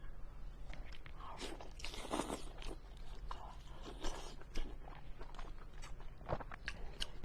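A person biting and chewing pork belly dipped in sauce close to the microphone: irregular crunching and chewing noises.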